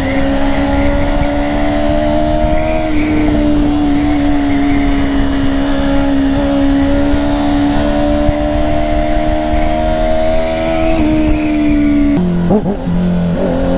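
Sport motorcycle engine running at steady high revs while riding, the pitch creeping slowly upward, then dropping in two steps near the end as the revs fall.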